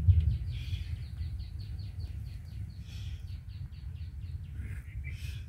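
A bird calling in a fast, even run of short high chirps, about six a second, stopping about a second before the end, over a steady low rumble.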